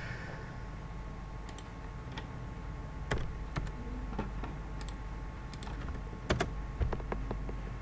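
Keystrokes on a computer keyboard: a handful of sharp taps at irregular intervals, starting about three seconds in, over a steady low background hum.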